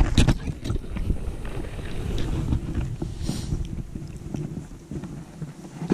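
Wind buffeting the microphone in a steady low rumble, with a few sharp clicks of handling near the start and a brief hiss about three seconds in.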